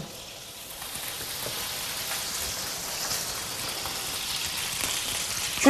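Olive oil and butter sizzling in a heavy frying pan, a steady hissing that shows the fat is hot and ready for frying.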